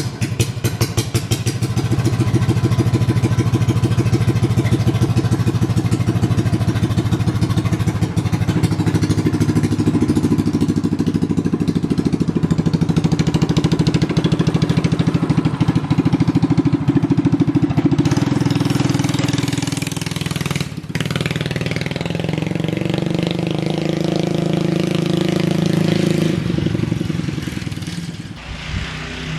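Coleman CT200U-EX minibike's small single-cylinder engine running, its pitch shifting up and down a few times, with a short dip about two-thirds of the way through and a drop near the end.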